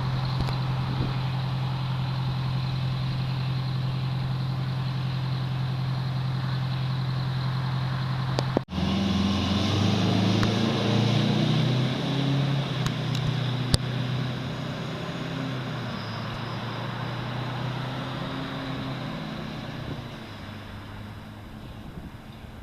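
Fire truck engine idling with a steady low hum. The sound cuts off abruptly about eight and a half seconds in, then engine sound resumes, shifting up and down in pitch and slowly fading toward the end.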